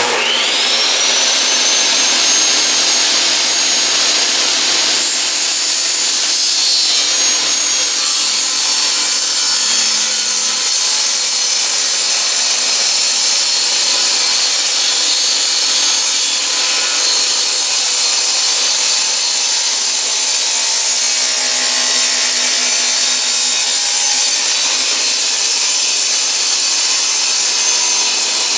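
Electric saw starting up with a rising whine that levels off, then running and cutting through wood without a break.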